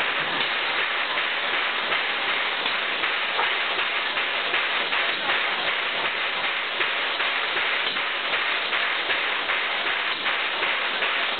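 Steady hiss of escaping steam from the standing C11 tank steam locomotive.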